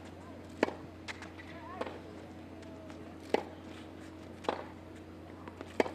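Tennis rally: about half a dozen sharp pops of racket strikes and ball bounces at irregular spacing, over a steady low arena hum and faint crowd murmur.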